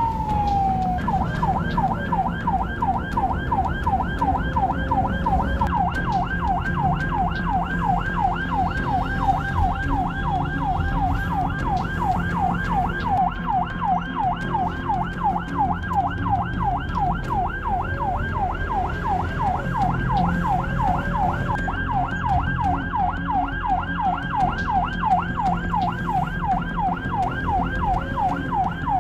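Ambulance's electronic siren heard from inside the cab: a falling wail that winds down about a second in, then a rapid, evenly repeating yelp. Engine and road noise run underneath.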